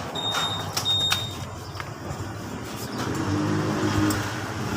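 Two short high electronic beeps about half a second apart near the start, then a few light clicks. From about three seconds in, a low whir builds as the Honda Click v2 scooter is started for an exhaust sound check.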